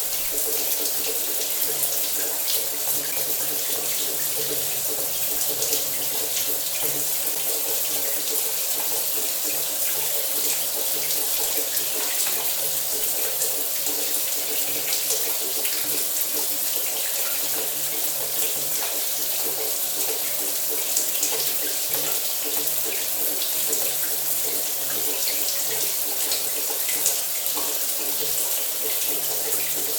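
Shower water running steadily, spray falling and splashing in a constant hiss with many small patters.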